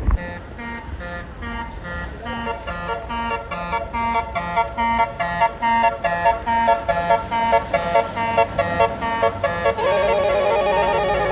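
A telolet Basuri multi-tone bus horn playing a quick tune of short repeated notes, about three a second. About ten seconds in it switches to a fast, steady warbling trill.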